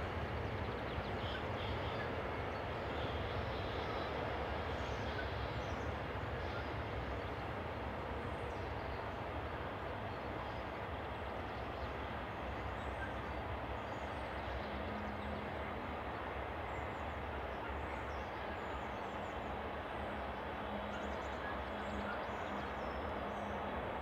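Long intermodal freight train, its wagons loaded with containers and trailers, rolling past at a steady speed: a continuous, even rumble of wheels on rail.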